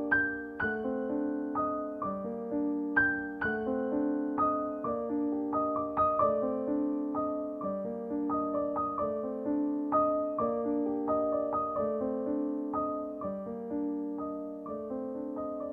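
Background music: a gentle solo piano piece, notes struck a few times a second and fading over held lower notes.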